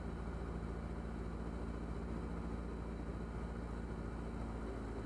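Diamond DA40 light aircraft's piston engine and propeller droning steadily in flight, heard inside the cockpit, with an even hiss over it.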